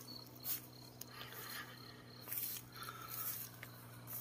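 Footsteps crunching through dry rice straw, a short dry rustle about once a second, over a faint steady low hum.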